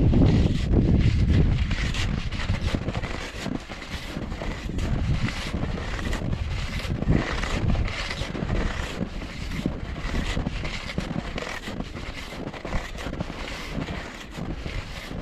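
Wide hunting skis swishing and crunching over a packed snowmobile track in a repeated stride rhythm. Wind rumbles on the microphone, heaviest in the first couple of seconds.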